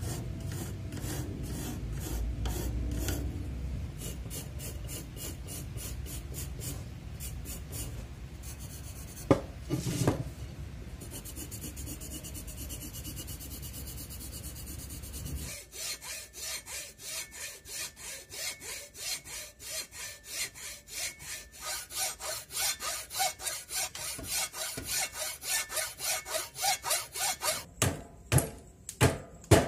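A pencil scratches on a jackfruit-wood handle blank, with two knocks about a third of the way in. From about halfway, a hand saw makes even back-and-forth strokes through the wood, about two a second, growing louder as it cuts relief kerfs. Near the end come a few sharp strikes of a hammer-driven chisel knocking out the waste between the cuts.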